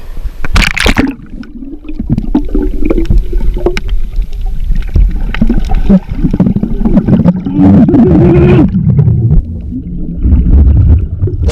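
A splash as the swimmers and camera plunge under the sea. Then the muffled underwater sound picked up by a submerged GoPro Hero4: a low rumble of water moving, with bubbling, gurgling and clicks, and low wavering tones.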